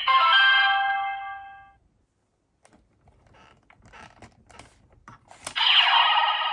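Electronic toy sound effects from a Kamen Rider Gotchard DX Chemy summoner: a ringing chime-like effect fades out, then light plastic clicks of the toy being handled. A sharp click about five seconds in sets off another loud ringing electronic effect.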